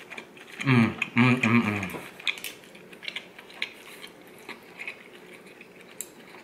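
A man's closed-mouth 'mmm' hum of pleasure in two parts while chewing a bite of char siu pork. After it come light clicks and clinks of wooden chopsticks and a black ramen spoon stirring noodles in a ceramic bowl.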